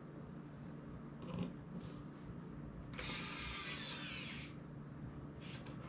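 Electric precision screwdriver whirring for about a second and a half, its pitch sliding down as it runs, while backing a screw out of a small MP3 player. A few light clicks of tiny parts before and after.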